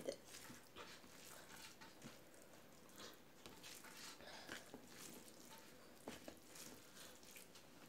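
Faint soft squishing and scattered light ticks of fingers mixing rice by hand on a stainless steel plate, under low room tone.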